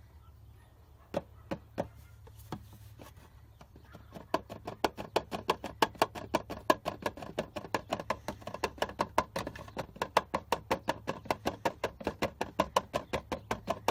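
A bottle of oil additive glugging as it is poured into an engine's oil filler, about five glugs a second, starting a few seconds in after a few separate clicks.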